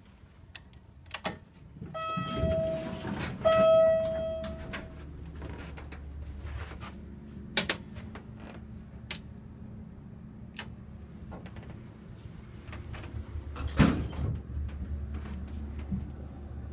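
Building elevator in use: two steady electronic beeps, the second longer, then the car running with a low steady rumble, scattered clicks and knocks, and a loud bang about 14 s in. The uploader calls these elevators loud and in need of some help.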